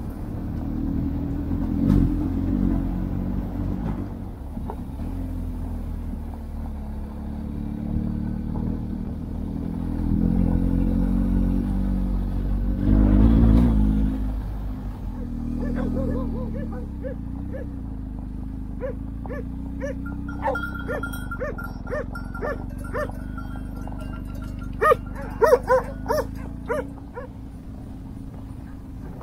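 A vehicle engine running with a low rumble that swells twice. Over the second half a dog barks repeatedly in quick runs, loudest near the end.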